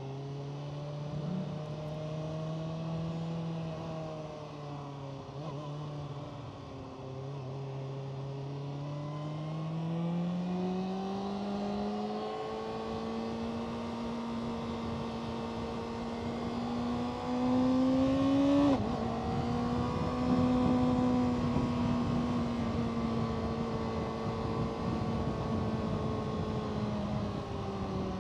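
Kawasaki Ninja ZX-6R 636 inline-four engine running under way, its note rising and falling with the throttle, over a steady rush of wind. The pitch drops about seven seconds in and again sharply about two-thirds of the way through, as it would at a gear change.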